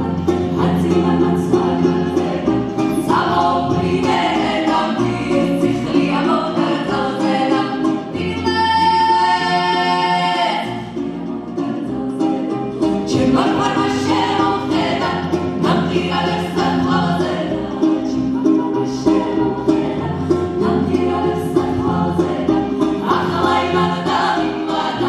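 Women's voices singing a Georgian folk song in harmony over a low sustained drone, accompanied by a strummed panduri. About eight seconds in, a high note is held for about two seconds.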